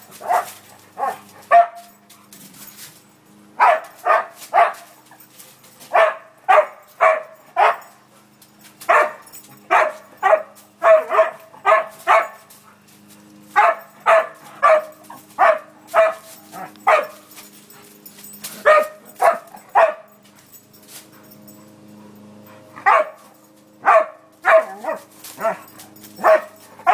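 Dog play barking: short, sharp barks in quick runs of several at a time, with gaps of a second or two between the runs.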